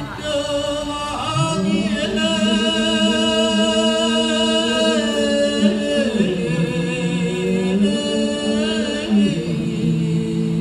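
Male voice chanting a Sasak pepaosan tembang, the sung reading of a takepan palm-leaf manuscript, unaccompanied, in long, slow, held notes with wavering pitch.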